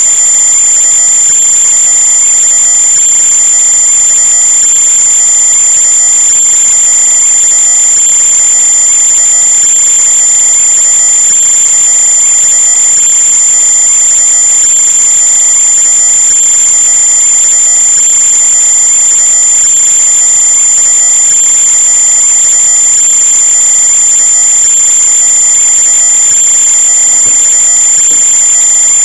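A loud, steady high-pitched whine made of several fixed tones, without any change in pitch or level.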